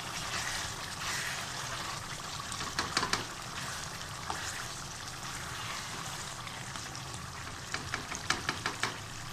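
Chicken masala frying and sizzling in a pan as a spoon mixes in chopped coriander and mint. The spoon clicks against the pan a few times about three seconds in and again in a quick run near the end.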